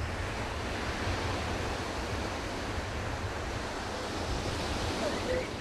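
Sea waves washing steadily, an even surf noise with a deep rumble.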